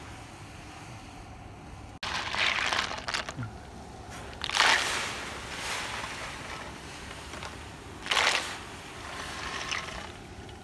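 Snails in their shells being tipped into a pan of seasoned water and handled: three short bursts of splashing and clattering shells, about two, four and a half, and eight seconds in, over a steady low hum.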